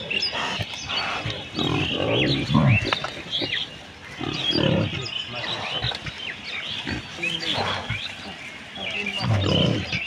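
A herd of pigs grunting, in loud low grunts that come in bunches a few seconds apart, with short high chirps going on throughout.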